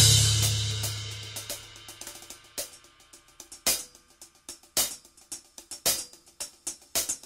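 Drum-kit music: a loud hit rings out and fades over the first two seconds, then sparse drum strokes land about once a second with lighter cymbal ticks between.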